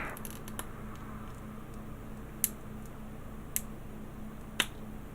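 Small sharp clicks of plastic model-kit parts being handled and pushed together, three distinct clicks about a second apart with a few fainter ticks before them, over a faint steady hum.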